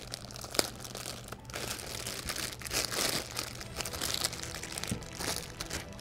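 Clear plastic bag crinkling and rustling as hands handle and unwrap it, with one sharp crackle about half a second in.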